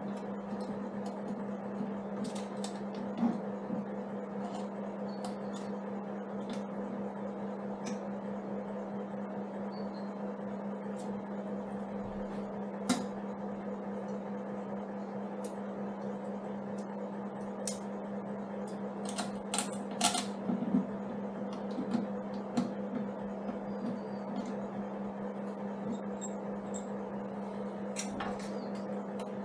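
Scattered light metal clicks and clinks of a toolbox bracket and its bolts being handled and fitted to a motorcycle's pannier frame, with a quick cluster of clicks around twenty seconds in, over a steady low hum.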